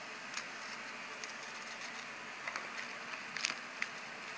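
Soft clicks and crackles of someone eating a wrapped piece of candy, over a steady faint hiss, with a small cluster of crackles about three and a half seconds in.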